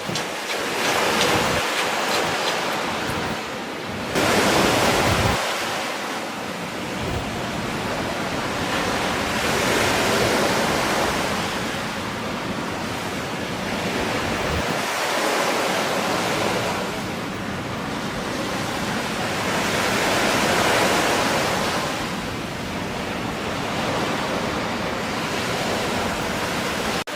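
Ocean surf: heavy waves breaking and washing, the rush swelling and fading every few seconds, with a sudden loud surge about four seconds in. Wind buffets the microphone.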